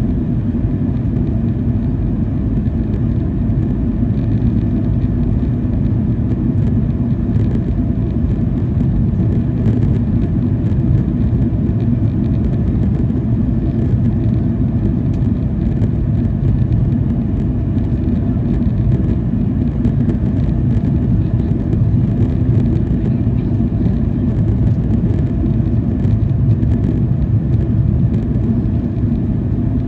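Cabin noise inside a Boeing 737-800 with CFM56-7B engines: a steady, loud low rumble of the engines and airflow, with faint scattered ticks over it.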